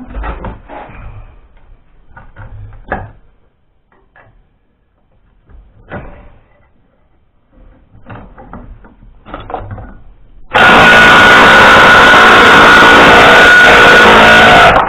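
Scattered metal clinks and knocks of hand tools working a seized manifold stud. About ten seconds in, a very loud, steady machine noise with a high whine starts suddenly and carries on.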